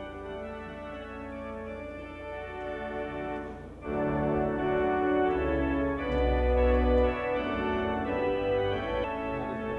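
Organ music playing slow, sustained chords, growing louder and fuller with deep bass notes coming in about four seconds in.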